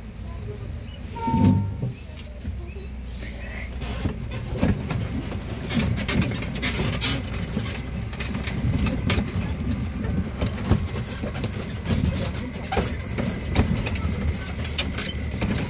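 Tourist train carriages running over a rough plantation track, with a steady low rumble and frequent rattles and knocks as they jolt along.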